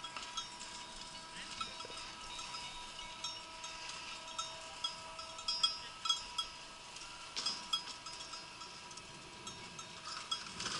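Cowbells clinking and ringing irregularly, with many short dings at a few fixed pitches. Near the end a low rolling noise grows as a summer toboggan sled comes down its metal track.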